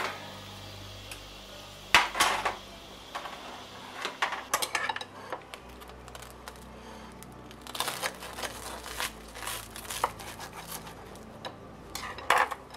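Dishes and cutlery clattering: a knife cutting through a crisp toasted grilled cheese sandwich on a plate, scraping and clinking against the plate in several short bursts. The loudest burst comes about two seconds in.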